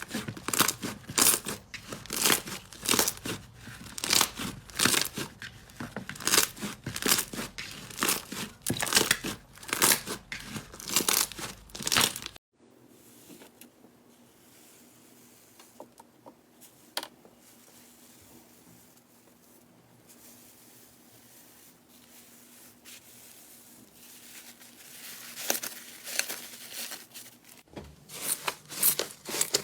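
Slime being squeezed and pressed by hand, crackling and crinkling in rhythmic squishes about twice a second. It cuts abruptly to much quieter, softer handling with a few faint clicks, which grows again, and the loud crackly squishing resumes near the end.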